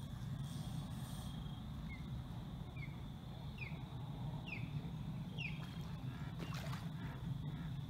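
A hooked carp splashes at the surface close to the bank about six and a half seconds in. Before that, a bird gives five short falling chirps about a second apart, each louder than the last, over a steady low hum.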